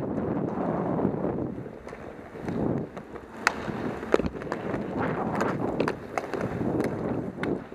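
Roller hockey play: skate wheels rolling and scraping on the rink surface, with sharp stick clacks scattered through, the loudest about four seconds in.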